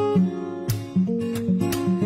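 Background music: a strummed guitar playing chords, with a strum about every second.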